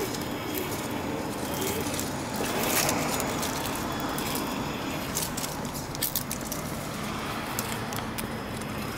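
Traxxas TRX-4 Sport 1/10-scale RC crawler driving over gravel and rock: its electric motor and geared drivetrain whir under the steady crunch of the tyres, with scattered sharp clicks of stones about five to six seconds in.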